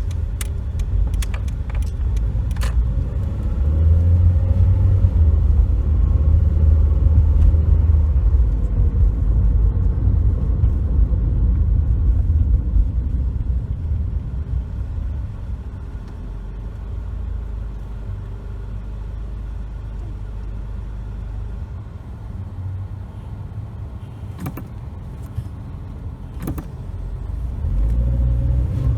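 2007 Toyota Corolla S driving, a steady low road and engine rumble that is louder through the first half and rises again near the end, with a few sharp clicks near the start and about 25 s in. No knocking comes from the steering, which the owner takes as a sign that the replaced steering yoke is doing its job.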